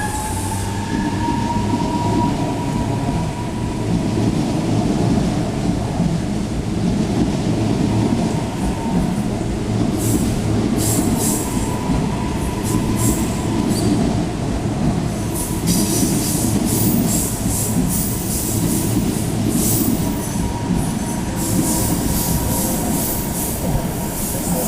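CPTM series 9000 electric train pulling out of a station: a steady rumble of the cars with a motor whine that rises briefly at first, then holds steady. From about ten seconds in there are repeated bursts of high-pitched wheel squeal and crackle.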